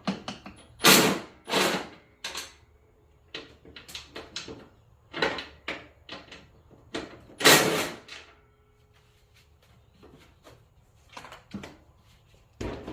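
Irregular knocks, clanks and short scrapes of hand tools and parts being handled during work on a compact tractor, with no steady rhythm. The loudest come about a second in, again just after, and a longer one around seven and a half seconds, with quieter clicks between.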